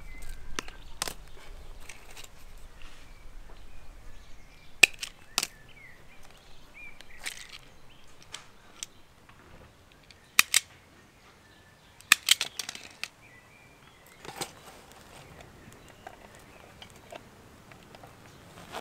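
Sharp, irregularly spaced snaps of hand wire cutters and an automatic wire stripper cutting and stripping thin lantern wiring, about eight snips in all, two of them in quick succession about ten seconds in. The wiring is being cut apart between the lanterns to track down a short circuit.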